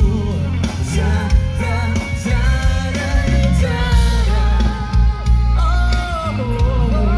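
A live band playing a pop-rock song with a lead singer, heavy bass under a bending sung melody, picked up from the audience through concert loudspeakers.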